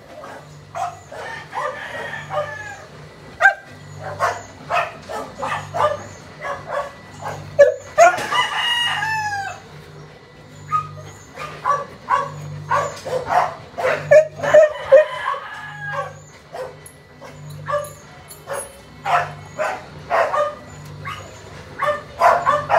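Neapolitan mastiff eating from a bowl, its jaws smacking and chewing in a run of short, sharp clicks. A rooster crows once, about eight seconds in.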